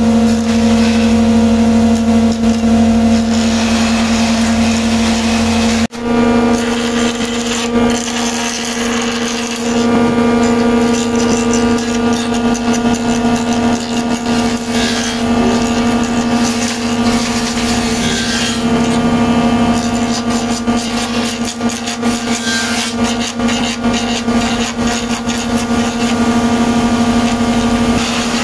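Woodworking jointer (surface planer) running with a steady motor hum while a wooden cue blank is fed over its spinning cutter head, the blades shaving the wood with an uneven cutting noise. The sound breaks off briefly about six seconds in, then the same hum carries on.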